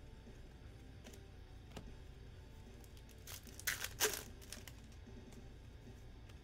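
Plastic wrapper of a trading card pack being crinkled and torn open, a few short rips clustered about three and a half to four seconds in, with faint crinkles before.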